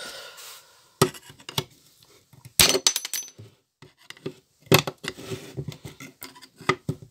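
Steel screwdriver clinking and scraping against the metal housing of a BMW N53 throttle body as the housing is worked open, with several sharp metallic clinks that ring briefly, the loudest about one, two and a half and nearly five seconds in, and smaller rattles and scrapes between.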